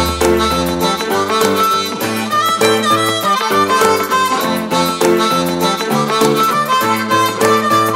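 Background music: an instrumental passage with a repeating melody over a steady beat.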